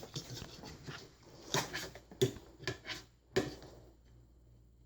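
A fork scraping and tapping against a bowl as instant rice is pushed down into the water, with a few sharper knocks; it stops about three and a half seconds in.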